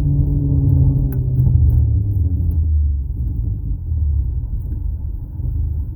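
Audi A4 2.0T's turbocharged four-cylinder engine running at held revs, then revs falling away about two seconds in and settling to a low rumble.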